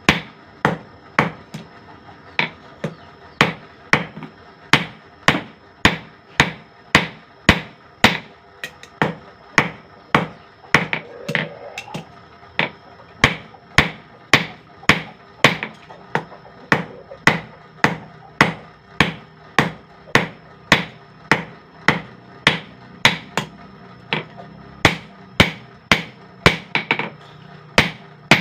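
Hammer blows on steel at the anvil, about two strikes a second in a steady rhythm, each with a short metallic ring: a blade blank from a recycled spring being forged.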